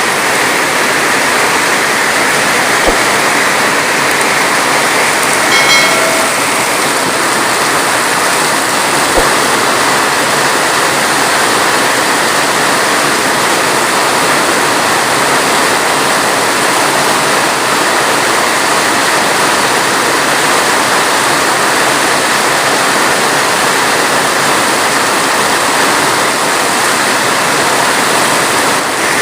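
Heavy rain falling steadily, a dense even hiss. About six seconds in, a brief high pitched sound cuts through it.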